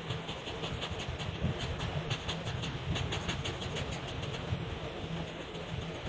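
Felt-tip markers scratching on paper in quick, uneven back-and-forth coloring strokes, over a low steady hum.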